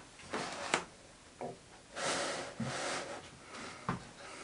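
Handling noise: a plastic digital readout console being picked up and shifted over foam packing, with rustling scrapes and a few sharp knocks.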